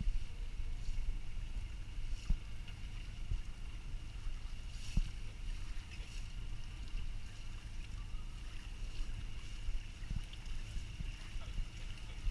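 Small fishing boat's engine idling with a low rumble and a faint steady high whine. Occasional light knocks come as the net is hauled aboard by hand.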